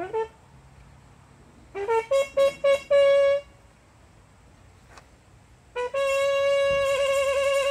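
Solo brass instrument playing unaccompanied: a quick run of rising notes ending on a short held note, a pause of about two seconds, then one long note held with vibrato.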